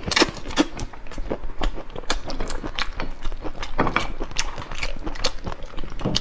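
Close-miked eating of whole prawns in marinade: chewing, with irregular sharp crackles as the prawn shells are cracked and pulled apart by hand.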